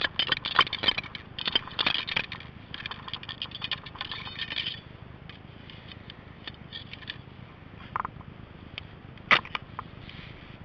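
Steel ramrod scraping and clinking in the barrel of a Baker flintlock rifle as the charge is rammed home: a quick run of metallic clicks and scrapes for about five seconds, then a few scattered clicks.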